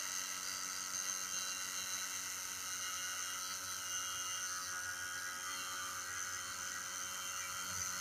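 Small electric toy motor spinning a cutter disc, a steady high-pitched whir.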